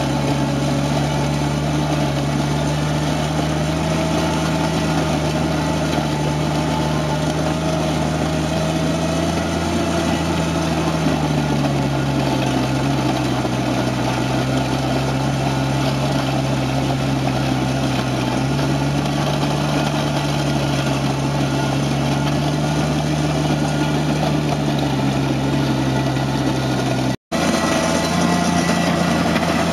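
Toro Dingo compact utility loader's engine running steadily under load while its Harley power rake attachment churns through driveway gravel, with a gritty rattle of stones under the engine hum. The engine pitch shifts slightly a couple of times, and the sound cuts out for an instant near the end.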